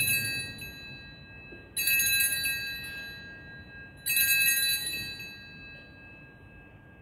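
Altar bells rung at the elevation of the host during the consecration. A ringing already under way at the start is followed by two more rings, about 2 s and 4 s in, each dying away.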